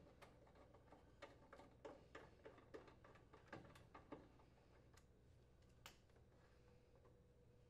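Faint, irregular clicking and ticking of a screwdriver turning out the dryer blower housing's mounting screws, dying away about six seconds in.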